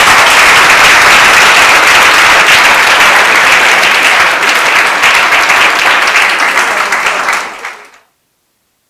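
Audience applauding, a dense run of many hands clapping that fades out near the end.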